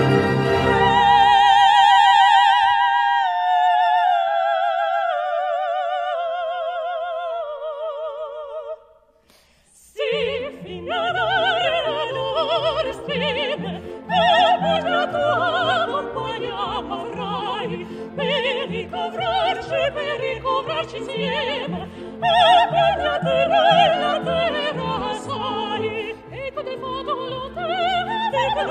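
Two female opera voices with a symphony orchestra. A single voice sings an unaccompanied cadenza with wide vibrato, stepping downward. After a brief silence about nine seconds in, the orchestra and the sung duet come back in together.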